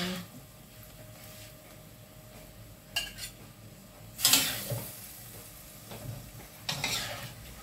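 Metal ladle scraping and clinking against a stainless steel wok while scooping out beef stew, three times: briefly about three seconds in, loudest just after four seconds, and again near the end. A faint sizzle of the simmering sauce runs underneath.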